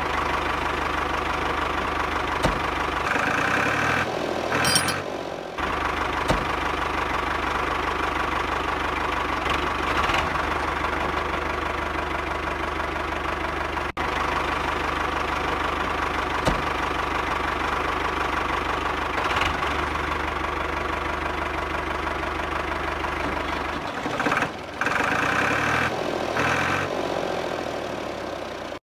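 The small engine of a homemade miniature tractor running steadily, with brief shifts in the sound around five seconds in and again around twenty-five seconds in.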